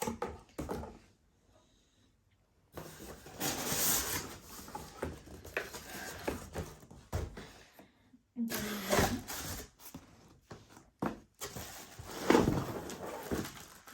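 Rustling and knocking of cardboard and plastic packaging as a new vacuum cleaner is unpacked by hand, irregular, with a short quiet pause about a second in.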